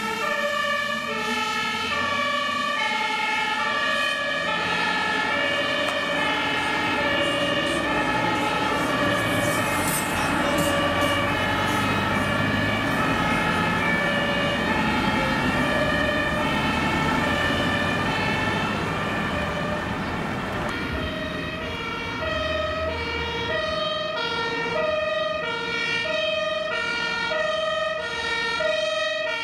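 German fire engines' two-tone sirens (Martinshorn) sounding continuously, stepping between two pitches about every half second, over truck engine and traffic noise. For the first two-thirds, two sirens play out of step with each other; near the end, one siren dominates.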